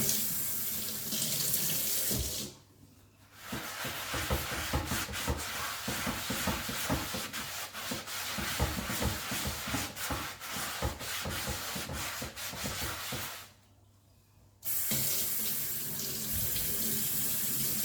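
Kitchen tap running into a sink while a cast iron fry pan is scrubbed with a wet sponge, with frequent scrapes and knocks. The flow cuts off twice, each time for about a second, once a few seconds in and again near the end.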